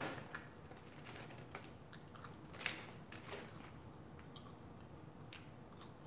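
Faint eating sounds: scattered small clicks while chewing and picking at a fried lemon pepper chicken wing, the loudest about two and a half seconds in.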